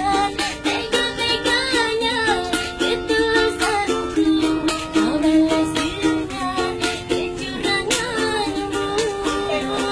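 A small ukulele-like kentrung strummed in a steady rhythm, with a woman singing along.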